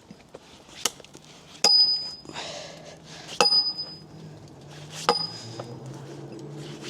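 A steel tool striking a log, five sharp blows about every second and a half to two seconds, several of them with a short, high metallic ring.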